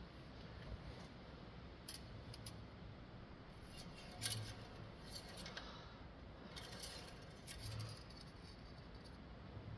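Engine oil dipstick being drawn and slid in its metal tube: faint metallic clicks and scrapes, the sharpest click about four seconds in and another near eight seconds, while the oil level is checked.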